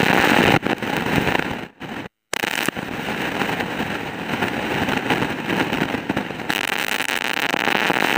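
Rice boiling hard in water in an aluminium pot, giving a dense, loud bubbling crackle that drops out briefly about two seconds in.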